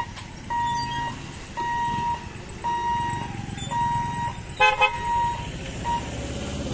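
Electric level-crossing barrier's warning beeper sounding while the booms lift, one even beep about every second, stopping about six seconds in. Two short vehicle horn toots come about four and a half seconds in, over the low running of motorbikes and an auto-rickshaw.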